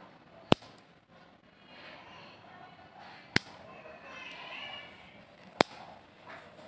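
Scissor-type pet nail clippers snapping through a cat's claws: three sharp clicks, each two to three seconds apart.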